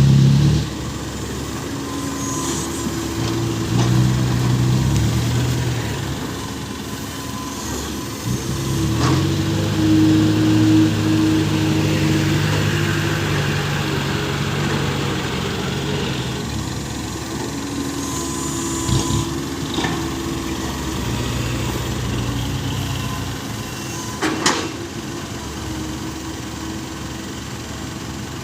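Small six-wheel truck's engine running, its pitch rising and falling several times as it is revved and eased off. A few sharp knocks sound over it, about a third of the way in, again around two-thirds, and shortly before the end.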